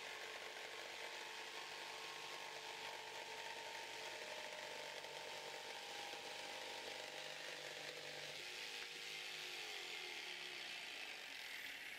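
Mafell P1CC jigsaw running steadily as its Q-Nex blade cuts through 44 mm structural timber. The tone shifts slightly near the end.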